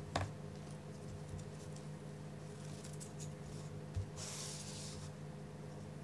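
Faint rustling and sliding of scrapbook-paper strips being handled and woven over and under by hand, with a soft bump about four seconds in followed by a second-long rustle, over a steady low hum.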